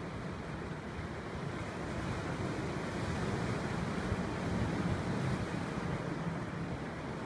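Sea waves washing onto a rocky shore, a steady rushing noise, with wind buffeting the microphone.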